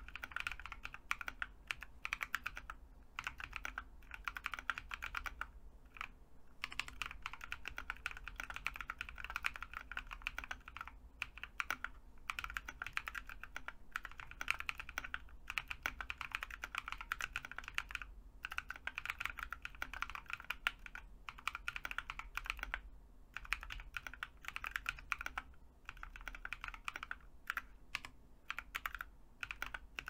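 Typing on a Drop ALT low-profile mechanical keyboard with lubed and filmed Drop Halo Clear tactile switches and MT3 keycaps: fast runs of keystrokes broken by several short pauses. There is no spring ping, the stock springs having been swapped for 65 g ones.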